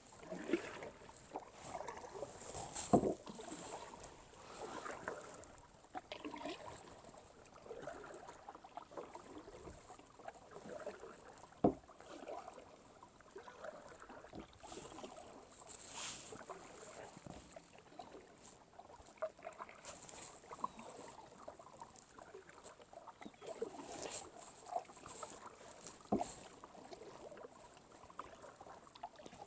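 Kayak paddles dipping and swishing through the water in repeated strokes, with a few sharp knocks, the loudest about three seconds in and just before twelve seconds.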